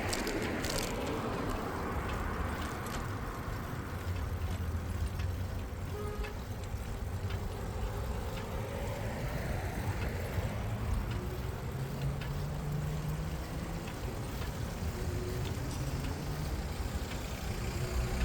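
Road traffic alongside a cycle path: a steady low rumble of engines and tyres, with one car passing right at the start and another around ten seconds in.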